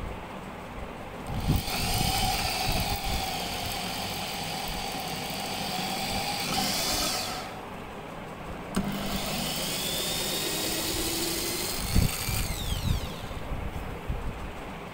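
Makita corded electric drill boring through laminate-faced plywood. The motor runs for about six seconds, stops briefly, then runs again for about four seconds and winds down with a falling whine.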